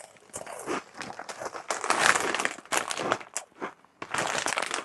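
A crisp packet rustling and crinkling in the hands as it is held open and rummaged in, in irregular bursts, loudest about two seconds in.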